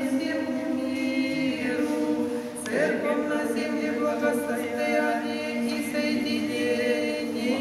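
A small group of mostly women's voices singing an Orthodox Christian hymn unaccompanied, in long held phrases, with a new phrase starting about two and a half seconds in.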